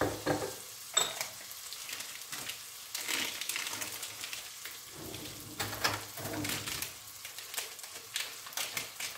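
Soup base sizzling as it sautés in a pot, with red lentils just added, stirred with a spoon that clicks and scrapes against the pot, and one ringing clink about a second in.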